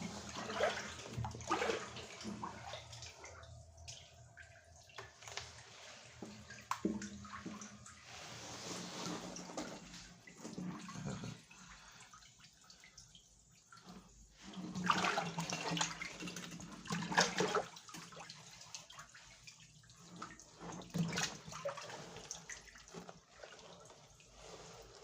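Water splashing and dripping inside a concrete-ring well shaft, in irregular bursts with the hollow echo of the shaft.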